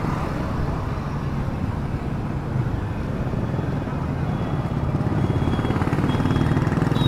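Motorcycle engine running steadily while riding through town traffic, heard from on the moving bike as a dense low rumble mixed with road and wind noise. It grows a little louder about five seconds in.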